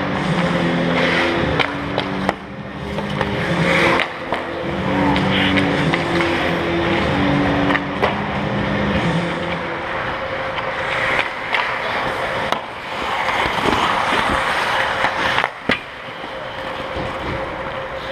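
Ice hockey skates scraping and carving on the ice close to the net, with several sharp knocks of sticks and puck against the goalie's pads and the net, over a steady rink hum.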